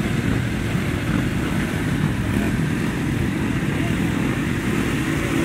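Many small Motom moped engines running together in a crowd, a steady blended drone.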